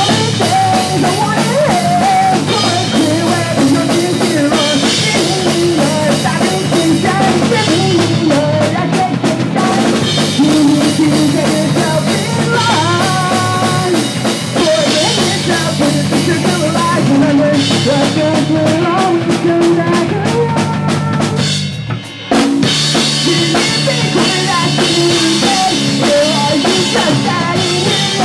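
Pop punk band playing live at full volume, with a driving drum kit under the band. About three-quarters of the way through the music stops for a split second, then the full band crashes back in.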